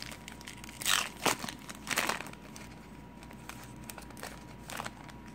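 Foil wrapper of a baseball card pack being torn open and crinkled by hand, with several loud crinkles in the first two seconds and a smaller one near the end.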